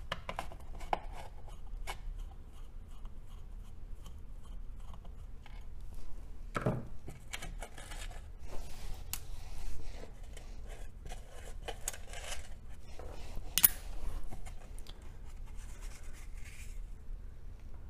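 Screwdriver backing flathead screws out of the rusty steel bottom plate of a 1949 Emerson desk fan, with small metal clicks and scrapes. The plate is then handled and lifted off, with a knock about seven seconds in and a sharp click near fourteen seconds.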